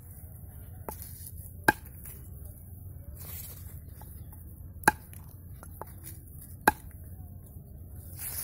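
Curved sickle blade chopping palmyra palm sprouts on a wooden log: a handful of sharp chops at irregular intervals, three of them much louder than the rest.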